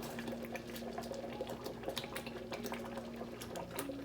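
Thick curry gravy bubbling in the pan, with scattered small pops and blips, over a steady low hum.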